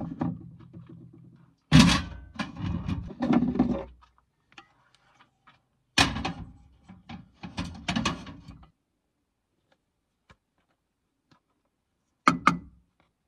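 Clattering knocks and thunks of cooking gear being handled, including a metal stovetop panini press worked open beside a portable stove. They come in two bursts a few seconds apart, and a single sharp click follows near the end.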